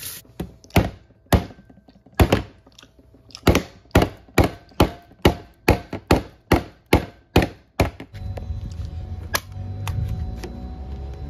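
Camera being knocked repeatedly to free a stuck lens. There are a few spaced sharp knocks, then a fast, even run of about four knocks a second, followed by low rumbling handling noise near the end.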